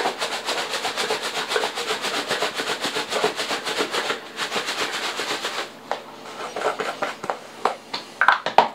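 Clumped granulated onion, caked by humidity, being crushed and rubbed against a paper plate: a fast, rhythmic scraping rub for about six seconds. It is followed near the end by a few scattered light clicks and knocks.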